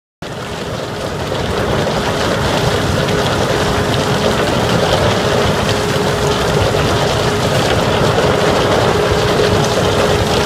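Steady rumble and rattle of rock ore pouring through a chute onto a vibrating screen deck. It starts abruptly and builds over the first two seconds, with a faint steady hum underneath.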